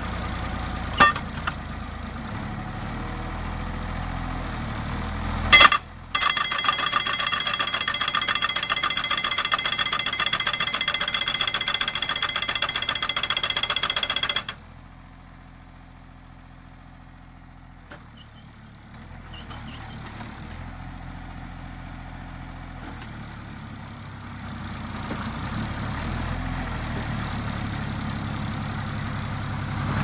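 Orteco 820J tracked pile driver: its engine running, a loud knock about five seconds in, then its 820-joule hammer pounding a post with rapid, evenly repeating blows for about eight seconds before stopping abruptly. The engine runs on more quietly and picks up again toward the end.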